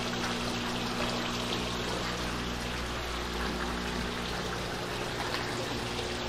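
Water splashing and bubbling steadily in live-bait shrimp tanks, churned by aerators and return-water pipes, over a steady low hum.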